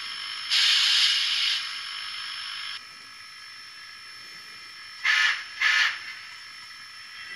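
Tsunami TSU-2200 sound decoder in an HO scale brass Santa Fe 3460-class 4-6-4 steam locomotive model, playing its steam sounds through the model's small speaker: a steady hiss with a loud burst of steam about half a second in that lasts about a second, the hiss dropping away near the middle, then two short whistle toots about five seconds in.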